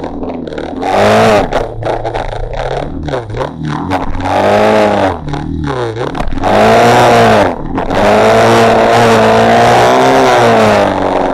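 Off-road motorcycle engine revving up and down in repeated surges, with a long high rev near the end before it cuts off suddenly. Brush scrapes past now and then.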